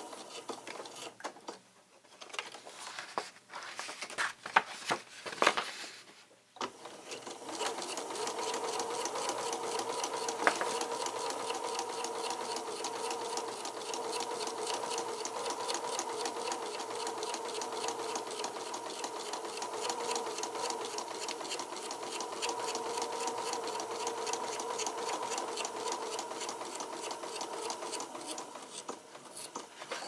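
Pfaff electric sewing machine stitching through paper and card. After a short run at the start come a few seconds of separate clicks and knocks, then a long steady run of rapid stitches that stops just before the end.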